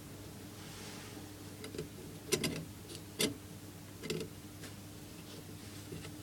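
Sharp clicks and light taps of small metal parts being handled, the nut and olive of a compression fitting on the stove's fuel pipe, with three louder clicks about a second apart in the middle, over a steady low hum.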